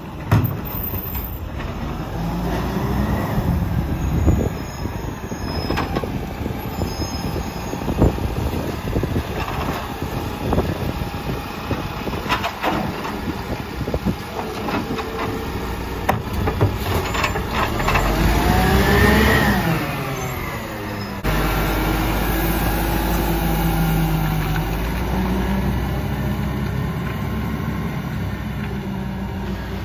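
Volvo side-loader garbage truck with a Superior Pak body: the diesel engine runs and revs as the hydraulic arm grabs, lifts and empties a wheelie bin, with repeated knocks and clunks of bin and arm and a rising then falling whine about two-thirds through. Then, abruptly, a steadier engine drone as the truck pulls away.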